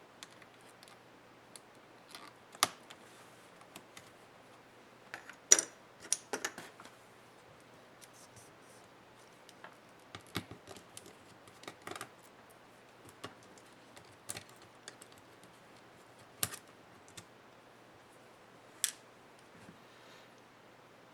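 Irregular clicks and light taps of small laptop parts and hand tools being handled during disassembly, with a sharper click about five and a half seconds in and scattered ones after.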